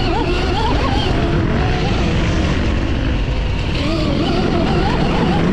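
Electric dirt bike ridden on a trail: the QS138 brushless hub-style motor with gear reduction whines, its pitch rising and falling quickly with the throttle, over a loud steady rush of wind and trail noise.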